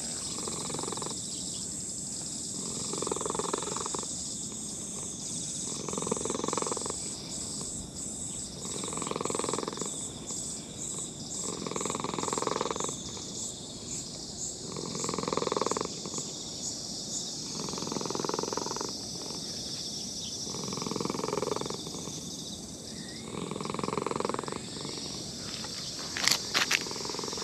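Old orange-and-white cat purring while being stroked, the purr swelling and fading with each breath, roughly every three seconds. A few sharp knocks near the end.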